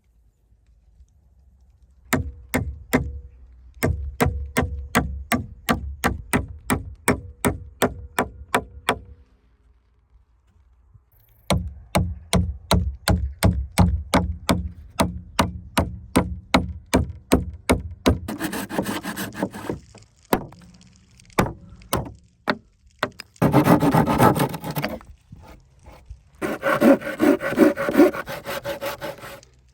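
Hand saw cutting timber: runs of quick, even strokes at about three a second with a short pause between runs, then longer rasping strokes near the end.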